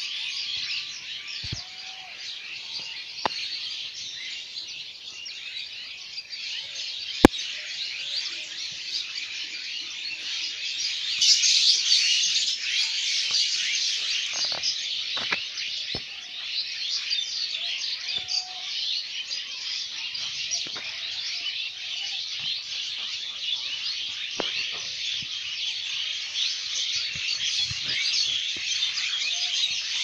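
Dense chorus of many birds chirping without pause, growing louder about eleven seconds in. A sharp click cuts through about seven seconds in.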